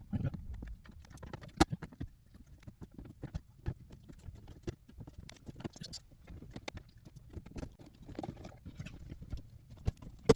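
Plastic dash pad of a 2016 Cadillac CTS V-Sport being pried up by hand: a run of irregular clicks, knocks and creaks from the plastic trim and its retaining clips.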